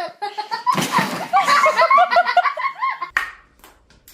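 A person laughing: a quick run of short, rhythmic ha-ha syllables starting about a second in and fading out near the end.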